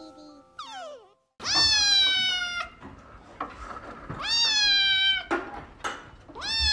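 Kitten meowing three times, each meow a long, high call of about a second that rises at the start and falls a little at the end, the last beginning near the end.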